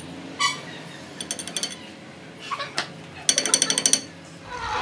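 Four short bursts of rapid metal-on-metal tapping with a high ringing tone, the last and longest near the end: a steel rod chipping slag off a fresh weld on a truck axle shaft.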